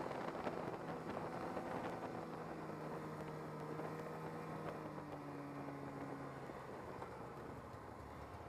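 Arctic Cat snowmobile engine running steadily while riding along a snowy trail, with track and wind noise, gradually getting quieter.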